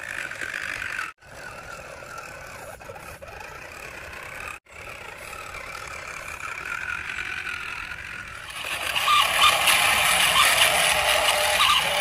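Small electric motor of a toy truck whining steadily as it drives, heard in short clips broken by abrupt cuts. From about eight and a half seconds in, a louder, rougher rattling noise takes over.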